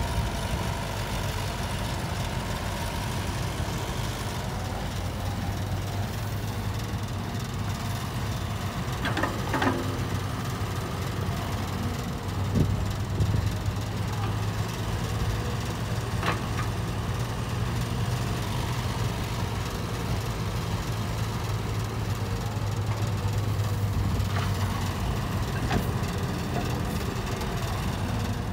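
Caterpillar crawler excavator's diesel engine running steadily as it digs and loads soil into a dump truck, louder for several seconds midway. A few short clunks are heard along the way.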